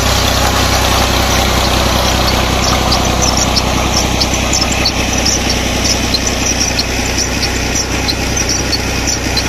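New Holland Ghazi tractor's diesel engine running steadily at a constant speed, driving a tubewell water pump through its PTO shaft.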